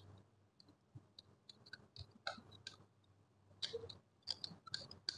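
Screwdriver tightening the mounting screws of an in-wall Wi-Fi router's plastic faceplate: a run of faint, irregular clicks and scrapes that grow louder and come closer together over the last second and a half.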